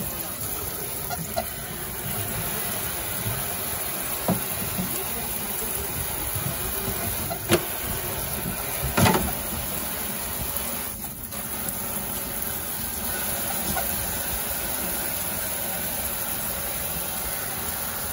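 Tap water spraying steadily into a utility sink and over a singed opossum carcass while its skin is scrubbed with a steel-wool scrubber. A few knocks sound over the running water, two louder ones partway through.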